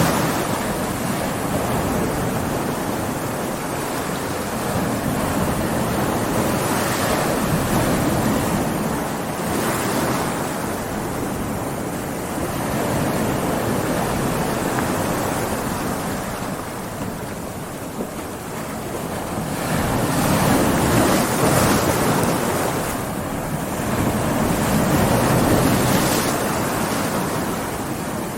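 Big ocean waves breaking and washing up on a beach, a continuous surf roar that swells and ebbs every few seconds, with wind on the microphone.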